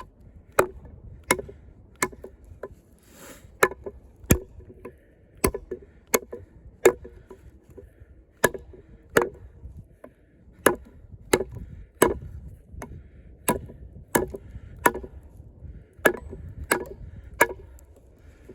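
A 6 mm thick Sleipner-steel combat knife chopping into a pressure-treated log, with sharp woody strikes at a steady pace of a little more than one a second, cutting a V-notch.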